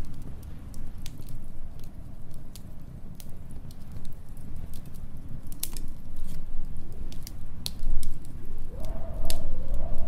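Wood fire crackling with sharp, irregular pops over the low rumble of storm wind. About nine seconds in, the wind rises into a wavering howl.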